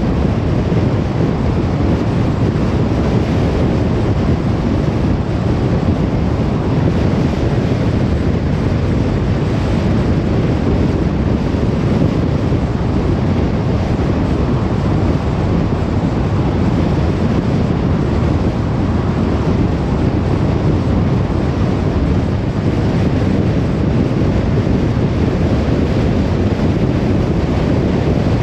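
Steady road noise of a car driving: an even rush of tyre and wind noise over a low rumble, with no change in level.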